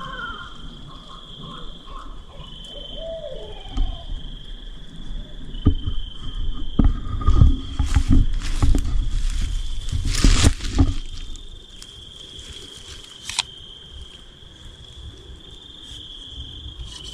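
Coyotes howling and yipping at night over a steady high chorus of insects. In the middle there is a louder stretch of close rustling and knocks.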